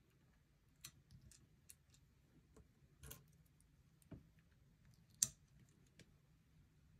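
Scattered light clicks and taps of small landing-gear pieces being handled and set down on a diecast model airliner, about half a dozen in all, with one sharper click about five seconds in.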